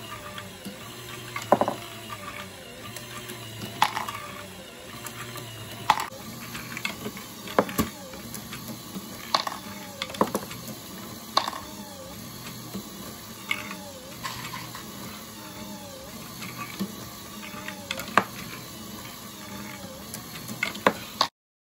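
A LEGO Great Ball Contraption module running: a steady motor hum with a whine that rises and falls over and over, and sharp plastic clicks and clatters every second or two as small balls drop and are moved along.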